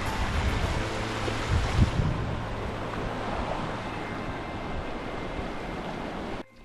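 Rushing water from a fast-flowing stream, a steady noise, with wind buffeting the microphone in low gusts about two seconds in. It cuts off suddenly just before the end.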